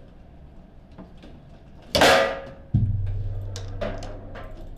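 Foosball shot: a sharp loud crack as the ball slams into the goal, then a low rumble of the ball running down the goal's return chute, fading over about two seconds, with a few light clicks of the rods.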